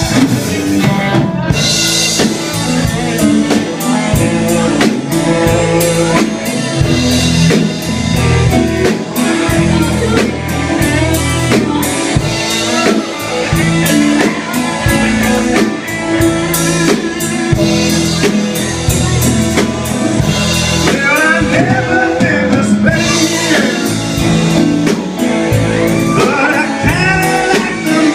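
Live rock band playing: drum kit, guitar and a singer, the singing clearest in the second half.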